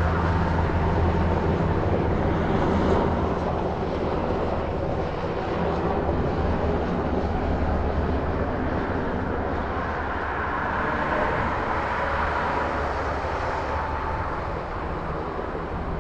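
Steady rush of wind and road noise while riding a bicycle along a roadside bridge path, with a low hum underneath. The traffic noise swells a little about ten seconds in.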